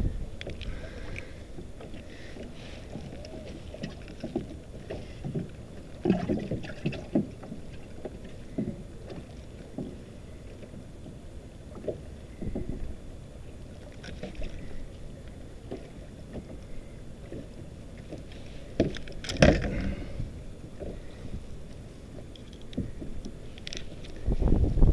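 Water lapping and sloshing against a plastic kayak's hull, a low steady rumble, with scattered short knocks, the loudest about three-quarters of the way through. The noise grows louder just before the end.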